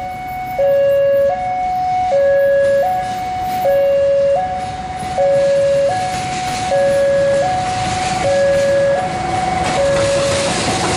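Railway level-crossing warning signal sounding a steady electronic two-tone alternation, high then low, each tone about three-quarters of a second. Underneath, an approaching diesel locomotive's engine and wheel noise grows louder near the end.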